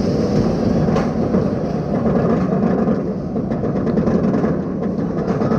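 Steel roller coaster train climbing its chain lift hill: a steady mechanical clatter from the lift chain and the train on the track, with faint regular clicks in the second half.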